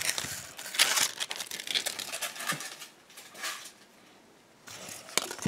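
Close handling noise: irregular rustling and crinkling with small clicks and knocks, easing off about three and a half seconds in and picking up again near the end.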